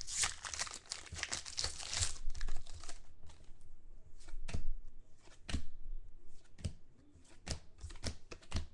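Shiny foil wrapper of a football trading-card pack crinkling and tearing open for about the first three seconds. After that come scattered short flicks and swishes as the cards are slid and flipped through by hand.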